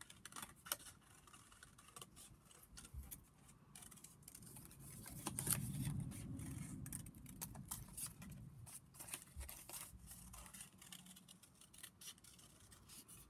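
Scissors snipping through folded card, a run of small quick cuts as a shape is cut out. There is a louder stretch of card handling and rustling in the middle.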